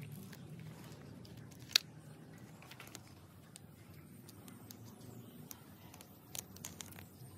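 Small clicks and taps of hands handling a black plastic roof-rack crossbar foot while fitting an adhesive rubber pad to it. One sharp click comes about two seconds in and a few more near the end, over a low steady hum.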